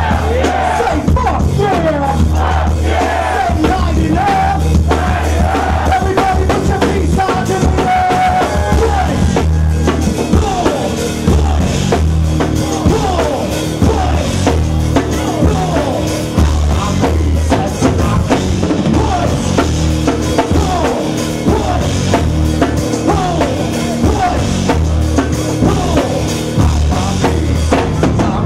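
Live rock-backed rap band playing loudly: a drum kit with a heavy bass drum, bass and electric guitar.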